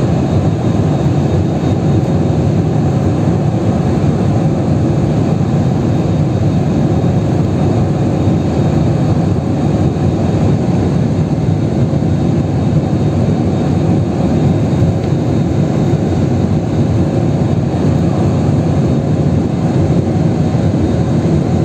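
Steady roar of a jet airliner's turbofan engines and airflow heard inside the passenger cabin in flight, a constant low rumble.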